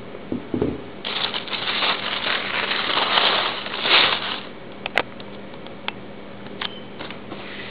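Tissue paper rustling and crinkling as it is handled and crumpled in a cardboard shoe box, for about three and a half seconds, followed by a few scattered light clicks and taps.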